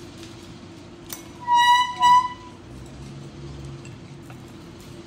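A sharp click, then two short, high, steady-pitched beeps about half a second apart, over a low steady hum.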